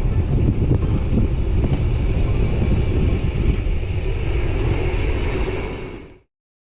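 Wind buffeting the microphone: a loud, steady low rumble that fades out about six seconds in, leaving silence.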